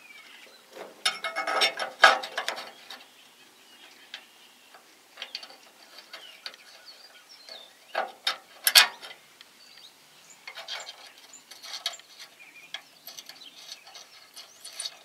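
Plastic trailer wiring connector with a spring-loaded cover being handled and worked into its steel mounting bracket, with the wires pulled through it: clusters of clicks, rattles and scrapes, loudest about two seconds in and again near nine seconds.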